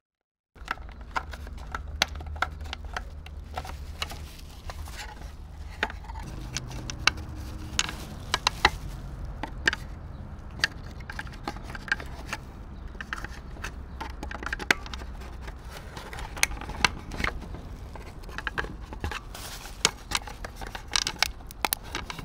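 Flat-blade screwdriver prying and scraping at the plastic housing of a Toyota Yaris side mirror: many irregular sharp plastic clicks and scrapes, with crackling of the bubble wrap it rests on, over a steady low hum.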